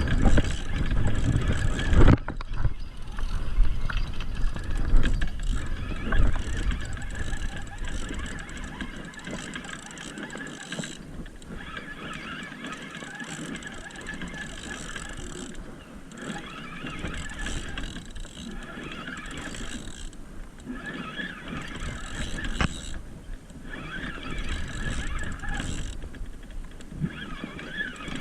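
Fishing reel being cranked in spurts while playing a hooked striped bass, its gears and clicker ratcheting, with short pauses between turns. Wind rumbles on the microphone for the first couple of seconds.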